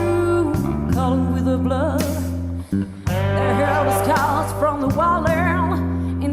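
Live blues-rock band music: a woman singing with a wavering vibrato over sustained bass and guitar, with a brief break in the music a little under halfway through.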